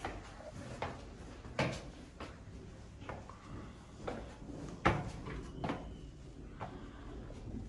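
Footsteps on a cleated wooden plank ramp: a series of knocks at walking pace, about one every second.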